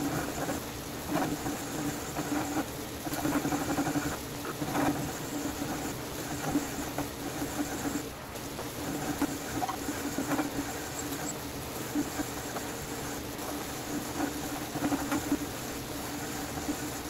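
Drill press running slowed down by a reduction pulley, a 3/4-inch twist bit cutting slowly into steel plate without a pilot hole: a steady hum with scattered clicks and scratches as chips break away.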